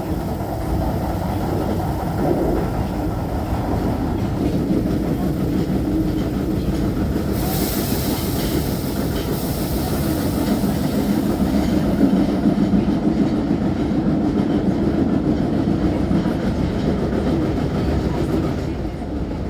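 Osaka Metro 30000A series subway train running between stations, heard inside the car: a steady rumble of wheels on rail with a clickety-clack and a low motor hum. A hiss rises in the upper range about seven seconds in and fades about five seconds later.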